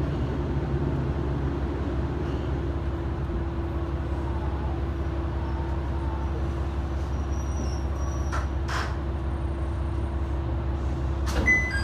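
Kanto Railway Joso Line diesel railcar heard from inside, easing along the platform to a stop, with a steady engine rumble and a low hum. A couple of short sharp sounds come about two-thirds of the way through, and another just before the end.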